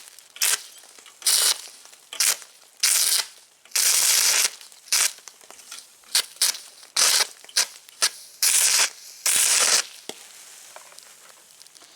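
Stick-welding arc run off three car batteries, crackling and hissing in about a dozen short, stop-start bursts as the rod strikes and the arc catches and breaks, stopping about ten seconds in. With no current control, it runs a little hot for the small rod.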